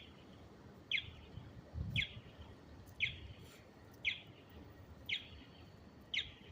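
Electronic alarm sounding a short, falling chirp about once a second, with identical evenly spaced chirps repeating seven times.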